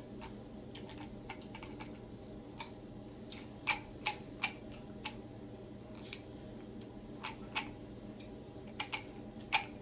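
Scattered light clicks and taps at irregular intervals, from a packet of Skittles and the hard-shelled candies being handled.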